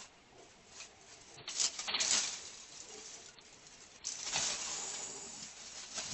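Dry leaves, twigs and grass rustling under a cat's paws and body as it moves about and noses through the litter. There is one louder burst about two seconds in, and steadier rustling from about four seconds.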